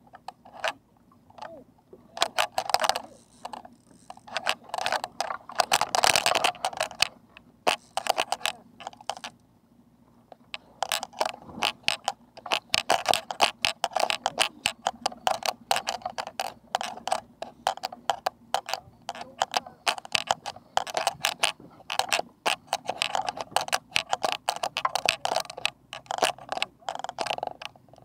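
Fishing reel on a trolling rod clicking in quick bursts of rapid ratcheting clicks with short pauses, going quieter for a moment about ten seconds in.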